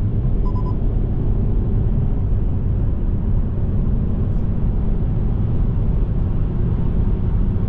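Steady low rumble of a car driving at motorway speed, heard from inside the cabin: tyre, engine and road noise.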